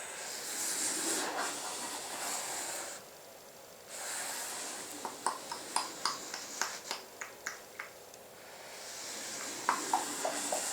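Leather ballet shoes sweeping across the floor in slow forward-and-back strokes: three long swishes, with a run of light clicks during the second and a few more near the end.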